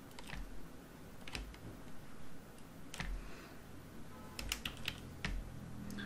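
Computer mouse and keyboard clicks: a handful of scattered single clicks, with a quick run of several about four and a half seconds in.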